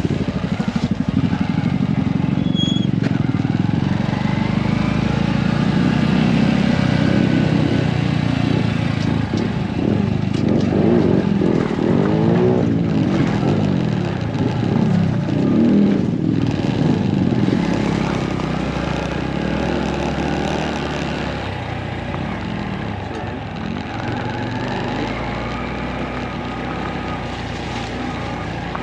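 Small motorcycle engine running while the bike is ridden, its pitch rising and falling with the throttle. It settles quieter and steadier in the last third.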